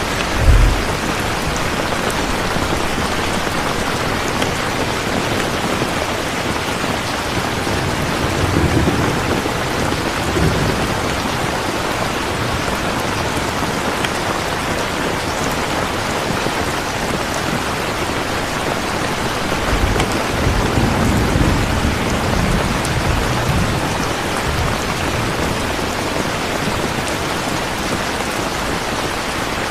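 Steady, even rain, with low rumbles of thunder: a short sharp boom just after the start, then longer rolling rumbles about a third of the way in and again past two-thirds.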